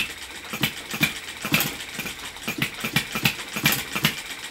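Stirlingkit B01 ball-top vertical hit-and-miss model engine running under load, belt-driving a small generator that lights four LED bulbs: a steady clatter of clicks and knocks, several a second.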